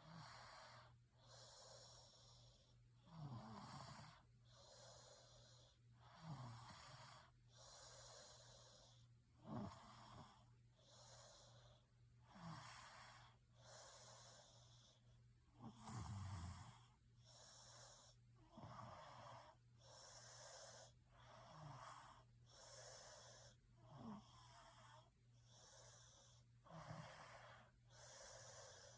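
A person snoring faintly in a steady rhythm, about one breath every three seconds. Each breath is a rasping, airy in-and-out sound with a short low rumble that drops in pitch. A steady low hum runs underneath.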